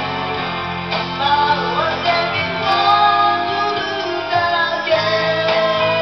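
Karaoke: a boy singing into a microphone over a karaoke backing track, holding a long note near the end.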